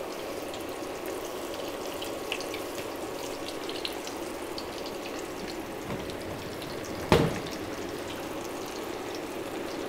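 Plantain wedges deep-frying in hot oil in a stainless steel pot: a steady sizzle with scattered small crackles. This is the first fry of twice-fried plantains. A single sharp knock comes about seven seconds in.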